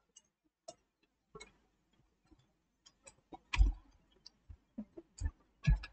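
Irregular, scattered clicks and light taps from a computer mouse and pen at a desk, with two louder knocks that have a dull thud, about halfway through and near the end.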